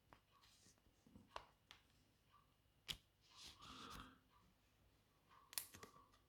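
Pokémon card being slid into a plastic card sleeve: faint crinkling and rustling of the thin plastic, with a few sharp little clicks, the loudest about three seconds in and again near the end.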